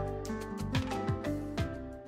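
Instrumental background music with pitched notes over regular percussive hits, slowly getting quieter.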